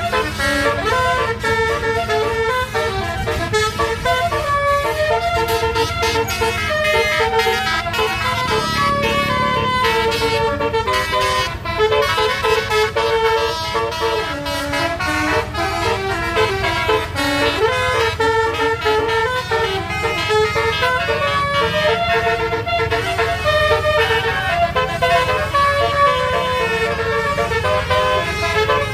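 Bus 'telolet' horn, a multi-tone horn playing a tune of quick stepping notes on and on, with the bus engine running underneath.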